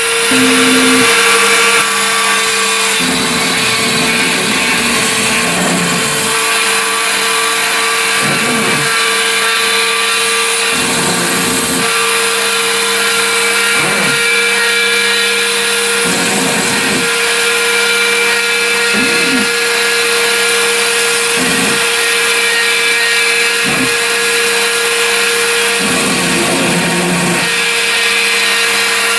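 Homemade CNC machine running: a steady motor whine throughout, with a short rising-and-falling motor tone about every two and a half seconds as the axes move.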